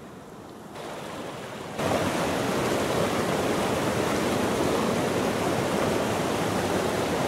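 A fast-flowing stream rushing over boulders: a steady rush of water that starts quieter and jumps to full loudness about two seconds in.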